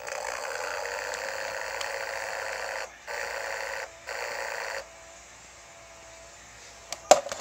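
Steady hiss from the television's speaker that cuts out briefly three times and then drops to a faint hum as the TV's input source is switched, with a few sharp clicks near the end.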